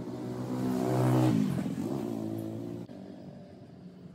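A motor vehicle driving past. Its engine note grows louder, then drops in pitch as it goes by about a second and a half in, and the sound cuts off abruptly about three seconds in.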